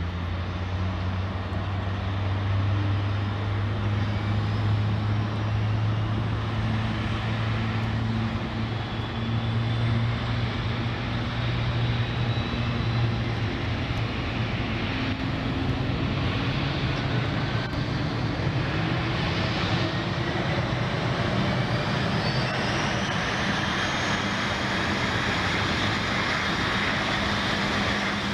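Airbus A350-900's Rolls-Royce Trent XWB jet engines running, a loud steady rumble with a deep drone; over the last several seconds a whine climbs steadily in pitch.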